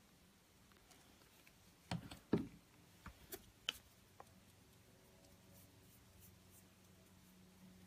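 Flat paintbrush taking up glue and brushing it onto a small square of card, with a few light knocks and clicks about two seconds in as things are handled on the tabletop. After that the brushing is faint.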